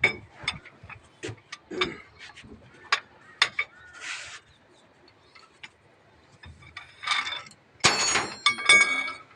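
Metal tools and engine parts knocking and clinking, with a louder ringing metallic clatter near the end.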